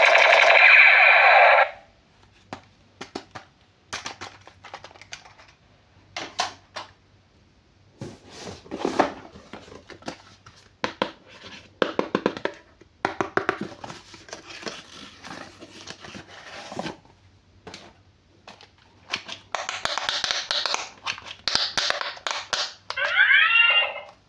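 A loud electronic sound cuts off under two seconds in. Then come scattered clicks, rustles and crinkles of plastic toys and packaging being handled, a louder stretch of rustling near the end, and a short warbling electronic sound just before the end.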